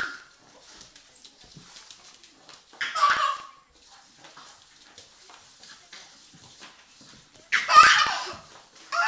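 A baby laughing and squealing in two loud bursts, about three seconds in and again near the end, while a small dog play-bites and tugs at his trouser leg, its noises faint between the laughs.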